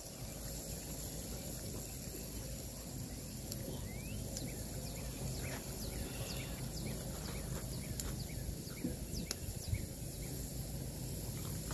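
Outdoor backyard ambience: a steady low rumble with many short, high bird chirps that slide down in pitch, scattered through the middle.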